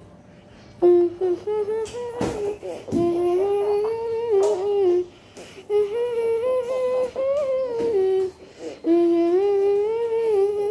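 A voice humming a wordless tune in long held notes, in several phrases with short breaks between them, with a sharp knock about two seconds in.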